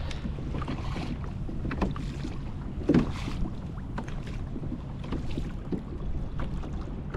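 Wind rumbling steadily on the head-mounted camera's microphone, with water slapping against the plastic kayak hull and a few light knocks.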